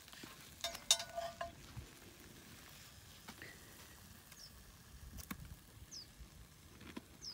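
A metal fork scraping and clinking against a cast-iron Dutch oven, loudest about a second in, then a sharp click later on. A few short, high bird chirps sound over it.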